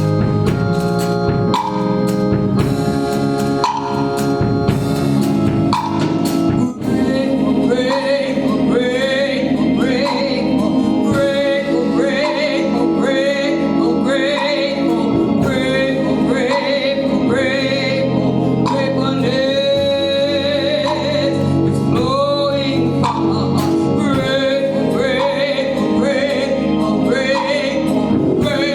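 Gospel music: a band with drums and keyboard plays alone for several seconds, then singers come in over it and carry on to the end.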